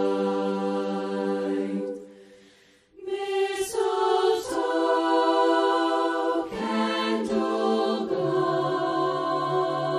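Women's a cappella chorus singing a Christmas song in close harmony. A held chord fades away about two seconds in, and a second later the voices come back in together, with lower voices joining near the end.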